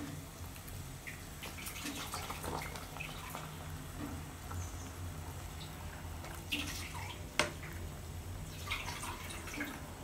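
Water boiling and bubbling in a metal pot of leaf-wrapped rice pouches, with small splashes and knocks as a wooden stick pushes them down; one sharp knock about seven seconds in. A low steady hum runs underneath.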